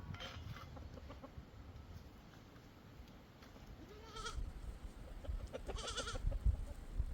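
Sheep bleating from the grazing flock: two calls, a short rising one about four seconds in and a longer wavering one about six seconds in. A low rumble runs underneath in the second half.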